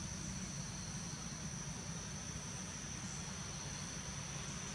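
Insects droning steadily in one unbroken high-pitched note, over a steady low rumble.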